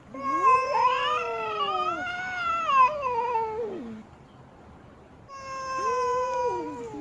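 Female cat yowling: two long, drawn-out wails, the first about four seconds long and wavering up and down in pitch, the second beginning about five seconds in.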